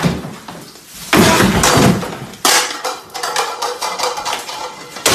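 Household objects crashing and clattering as they are smashed and thrown, with one sudden loud crash about a second in and another about two and a half seconds in.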